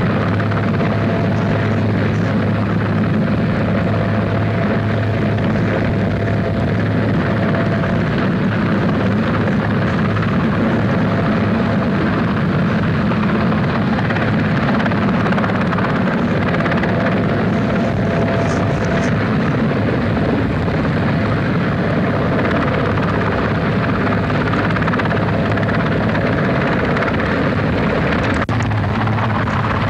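Large helicopter hovering low, its rotor and turbine engines running with a steady, even noise and a low hum.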